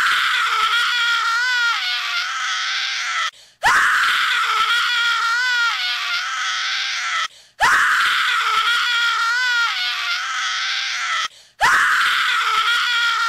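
Looped horror sound effect of a high wailing cry, like a scream or a baby's crying. It starts abruptly with a sharp rise in pitch, holds and wavers partway through, then breaks off and repeats about every four seconds.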